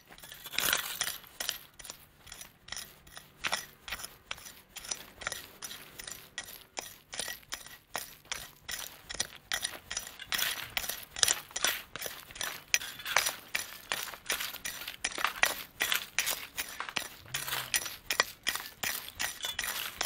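Long-handled hand tool digging and scraping through loose rock rubble and gravel, stones clinking against the tool and each other in quick repeated strokes, about two to three a second.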